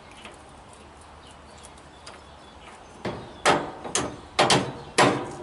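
Bolts being driven into a truck's leaf spring shackle: a string of about six sharp metal-on-metal knocks, each ringing briefly, starting about three seconds in at roughly two a second.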